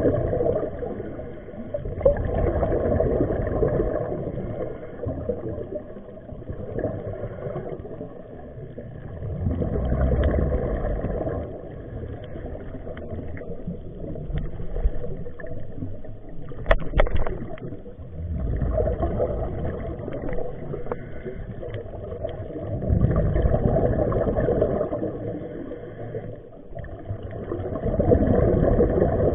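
Muffled underwater sound of a scuba diver breathing: waves of bubble noise from the regulator's exhaust swell and fade every few seconds, with one sharp click about two thirds of the way through.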